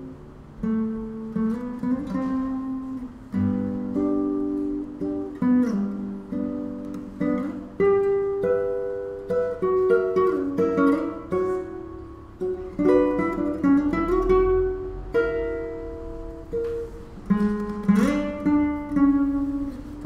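Solo classical guitar played fingerstyle: a melodic line over sustained bass notes, with a few notes sliding in pitch.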